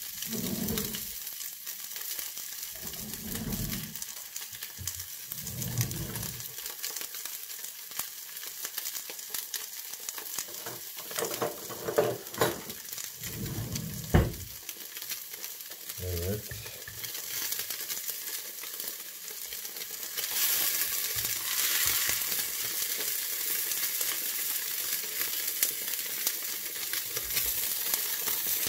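Fish fillet frying skin side down in a little olive oil in a non-stick pan, a steady sizzle that grows louder in the second half. A few low thumps and knocks come in the first half, the two sharpest about twelve and fourteen seconds in.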